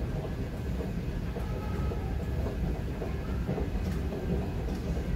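New York City subway train running: a steady low rumble with a few faint clicks.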